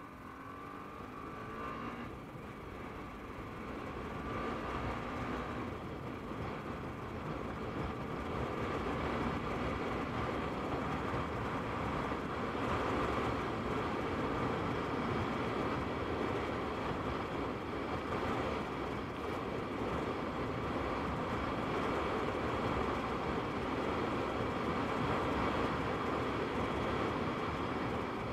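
TVS Apache RR 310's single-cylinder engine rising in pitch for the first couple of seconds as the motorcycle accelerates. It is soon buried under a steady rush of wind and road noise at speed, close to 100 km/h.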